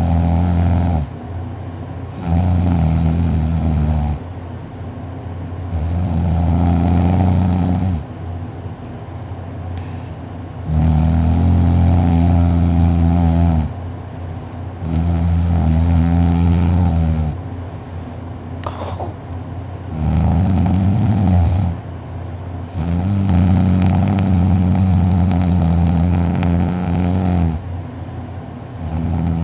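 A sleeping man snoring heavily: a loud, rough, low rasp on each breath, coming about every four seconds with quieter breathing in between. It is a sound he likens to a lawn mower.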